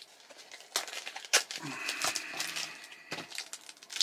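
Foil Pokémon booster-pack wrappers and cards crinkling and rustling in the hands, with a few sharp crackles, strongest about a second and a half in and again near the end. A brief wordless vocal sound comes from the man about halfway through.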